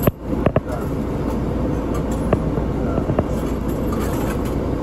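Route bus engine idling steadily at a stop, heard from inside the cabin, with a few light clicks early on and later.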